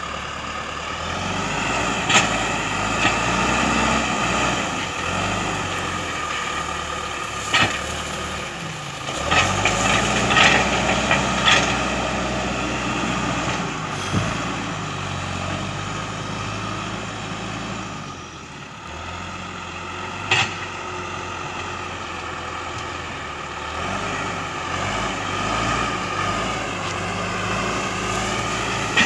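John Deere 310E backhoe loader's diesel engine running under working load, its pitch rising and falling with the throttle, with several sharp metallic clanks from the machine as it works a dirt road.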